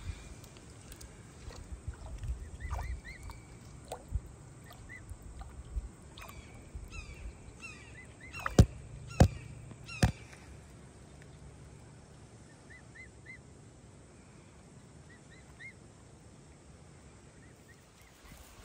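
Emu chicks peeping in short high whistles while they splash in shallow water. Three sharp knocks about halfway through, as a chick's beak bumps the phone.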